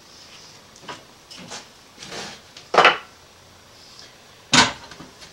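Clunks and knocks from a Festool aluminium guide rail and its table hardware being handled and locked down: a few light knocks and rattles, then two sharp clunks, about three seconds in and near the end.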